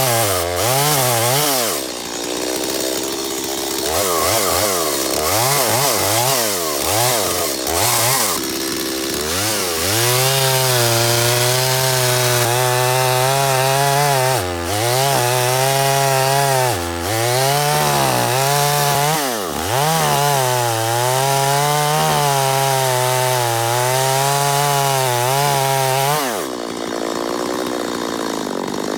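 Stihl two-stroke chainsaw cutting through wood. For the first several seconds the engine speed rises and falls repeatedly; then it holds at a steady high speed under load, sagging briefly a few times as the chain bites. Near the end it drops to a lower, lighter speed.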